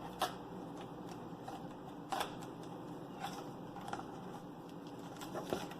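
Scattered light clicks and taps of hands handling a laptop's LCD panel while working it free from its adhesive tape, over a faint steady background hiss.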